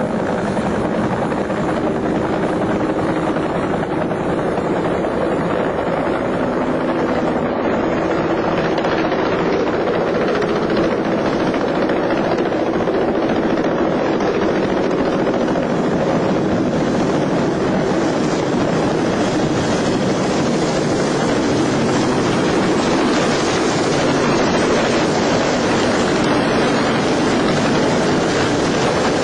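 Tandem-rotor military helicopter in flight, a steady rotor and engine noise that grows harsher in the second half as it nears.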